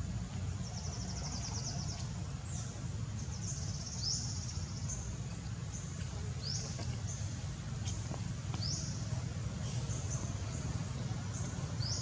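A bird calling repeatedly: short, high-pitched notes that sweep upward, about one every one to two seconds, with a brief buzzy trill near the start, over a steady low rumble.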